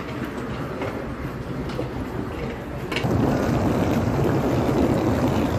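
Wheeled suitcases rolling, with scattered clicks at first, then a rougher, louder rumble from about three seconds in as they roll over asphalt.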